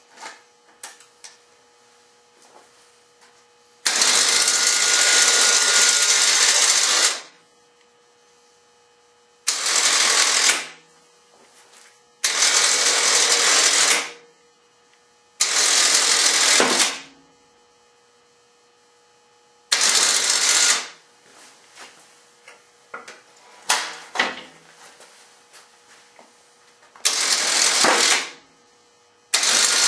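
Harbor Freight 3000 lb electric winch on a Honda Recon ATV, run in about eight short bursts to raise and lower a plow blade; the first run lasts about three seconds and the rest a second or two or less, each starting and stopping abruptly.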